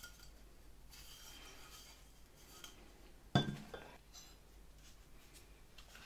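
Quiet handling of small vacuum-cleaner parts, with one sharp metallic clink about three seconds in that rings briefly as a part is knocked or put down on the workbench.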